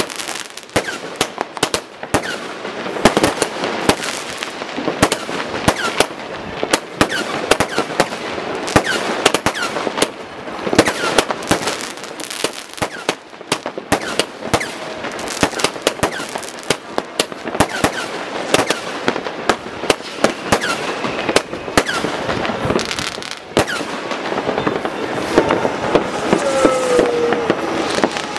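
Fireworks: many rockets and firecrackers going off in quick succession, a dense, unbroken run of bangs and crackles, with occasional whistling glides and one falling whistle near the end.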